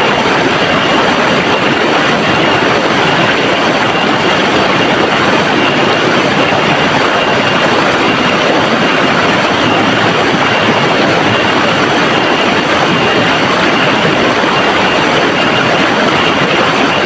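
River water rushing steadily, an even unbroken hiss with no distinct splashes.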